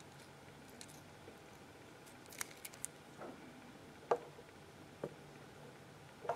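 Soft scattered clicks and ticks of fly-tying handling: thread paid out from a bobbin and wrapped around a hook held in a vise, with a thin plastic strip pressed on the hook's back. A quick run of sharp little ticks comes about halfway through, with a few louder clicks after it, over a faint low hum.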